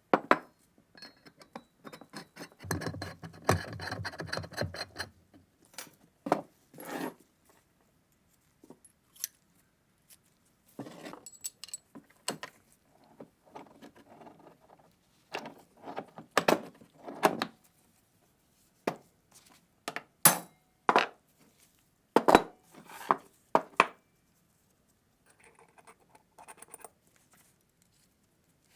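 Metal parts and tools clinking and knocking as they are handled, in scattered sharp strikes, with a few seconds of buzzing about three seconds in.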